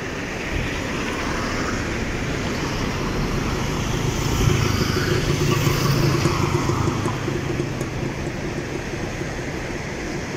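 A car passing close by on the road: its engine hum and tyre noise rise to a peak about halfway through and then fade, over steady traffic and outdoor noise.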